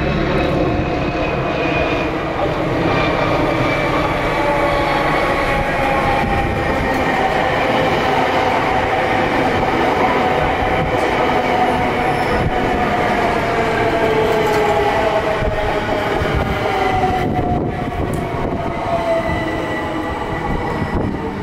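Bombardier Electrostar electric multiple unit's traction motors whining as the train slows, with several tones sliding slowly down in pitch, over the rumble of wheels on rail and a few clicks near the end.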